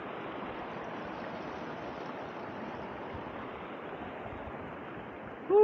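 Shallow river rushing over a rocky bed, a steady even rush of water. A loud call with falling pitch begins just at the end.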